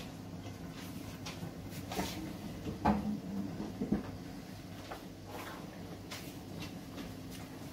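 A few short knocks and clicks, the loudest about three and four seconds in, over a steady low hum.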